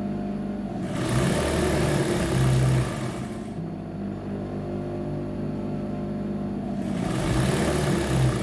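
Electric sewing machine stitching a seam: its motor runs in two fast runs, one starting about a second in and lasting a couple of seconds, the other near the end, with a lower steady hum between them.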